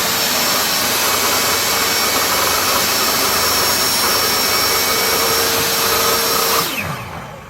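Table saw motor and blade running at full speed, a steady loud whine. Near the end it is switched off and winds down, its pitch falling.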